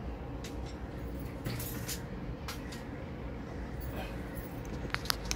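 Handling noise of a plastic Nerf blaster kit: scattered light clicks and knocks, then a quick run of sharper clicks near the end as small hard parts on the table are moved.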